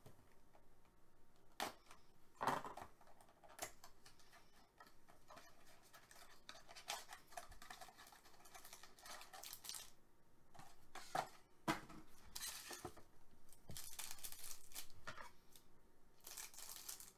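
Trading card packaging being opened by hand: paper and wrapper tearing and crinkling in scattered bursts, with scissors cutting a shiny foil wrapper near the end.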